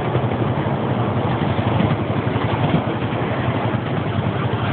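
Mini train running, heard from on board as it moves along: a steady engine-like rumble that holds even throughout.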